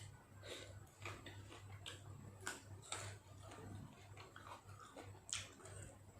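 A person eating beef nam tok salad with raw vegetables: irregular clicks, smacks and crunches of chewing at the microphone. A steady low hum runs underneath.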